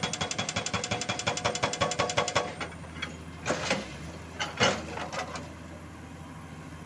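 Excavator-mounted hydraulic breaker hammering rock at about ten blows a second, stopping about two and a half seconds in. A few separate knocks and scrapes follow, with the excavator's engine running underneath.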